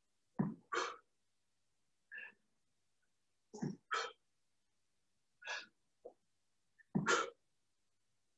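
Short, forceful exhalations of a man straining through push-ups, in pairs about every three seconds with quieter single breaths between.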